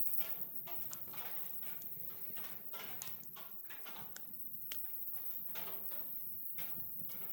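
Wood fire crackling: irregular sharp pops and snaps over a steady soft hiss of burning.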